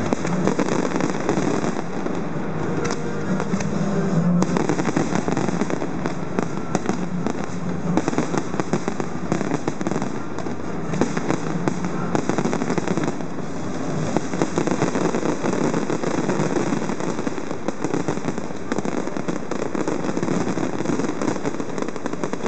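Fireworks display going off continuously, a dense run of rapid crackling and popping from many shells and rockets at once.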